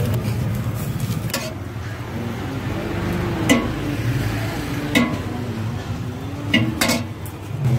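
A steel ladle scooping chhole from a large steel pot, with five sharp clinks of metal on the pot rim and foil bowl. Under it runs a steady low rumble of street traffic and a faint wavering hum.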